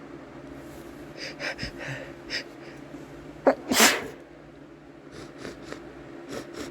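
A man sneezing once, hard, about halfway through, brought on by chhinkni sneezing powder. Several quick catching inhales come before it, and short sniffs follow.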